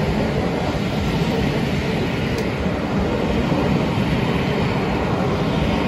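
Vintage Pullman and other passenger coaches rolling past close by: a loud, steady rumble of wheels on the rails.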